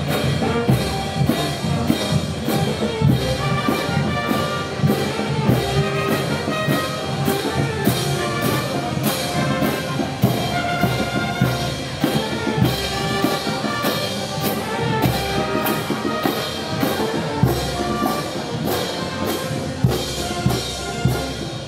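Brass band playing, trumpets and trombones over drums and cymbals that keep a steady beat of about two strokes a second.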